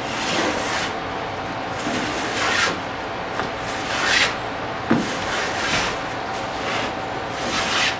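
A steel block plane shaving the edge of a cedar plank in repeated hissing strokes, about one a second, cutting the bevel for a lapstrake lap. There is one sharp knock about five seconds in.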